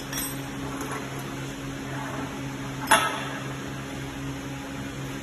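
Steady electrical hum from a switched-on ultrasonic welding machine. Light metallic clatter comes as parts of its tooling are handled, and one sharp knock about three seconds in as a part is set down.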